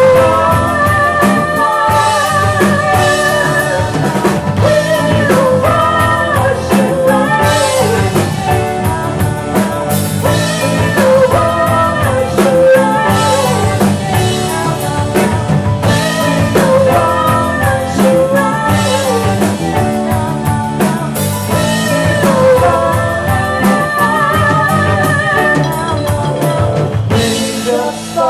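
Rock song with a singing voice over electric guitar, bass and a drum kit keeping a steady beat. The band drops back about a second before the end.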